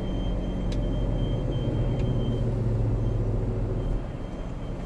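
A truck's engine running at low speed in slow traffic, heard inside the cab, with a faint steady high-pitched squeak over it and a couple of light clicks. The engine rumble swells, then eases off about four seconds in.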